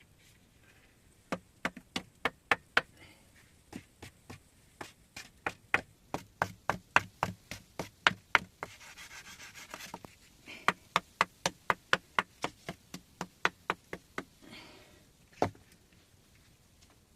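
Quick series of sharp knocks or taps on a hard surface, about three a second, in several runs, with a brief scraping stretch in the middle and one heavier knock near the end.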